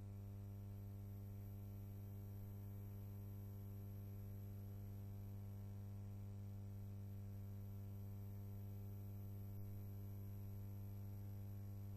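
Steady low electrical hum with a faint hiss, unchanging throughout, with one faint tick near the end.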